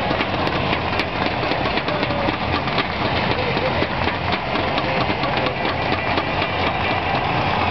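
Large stadium crowd cheering and clapping without let-up: a dense, loud wash of voices dotted with many sharp claps.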